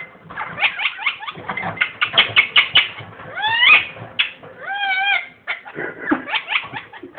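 Ringneck parakeet laughing: fast runs of short, sharp chattering notes, a rising squawk, then a held call at a steady pitch about five seconds in, and more quick chattering near the end.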